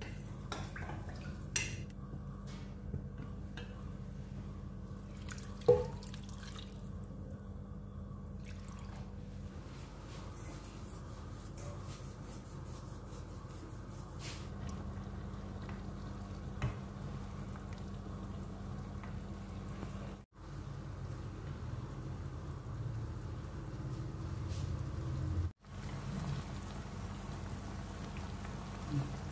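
Kitchen cooking sounds under a steady low hum: a few sharp clinks of wooden chopsticks against a stainless steel bowl as sauce is stirred, then sauce with pork pieces bubbling in a pan over a gas flame.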